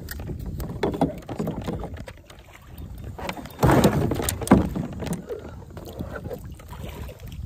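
A fishing kayak being moved about on the water: knocks and water noise against the hull, with a louder rough burst from about three and a half seconds in to nearly five seconds.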